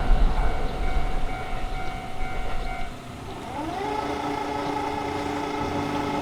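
Electric train on the JR Kawagoe Line running over a level crossing, its rumble fading over the first few seconds. About three and a half seconds in, a set of steady tones begins, sliding up briefly and then holding.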